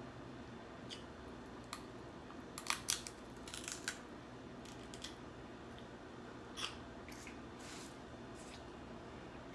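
Snow crab shell being cracked and picked apart by hand: scattered sharp cracks and snaps, the loudest pair about three seconds in, with a few more later.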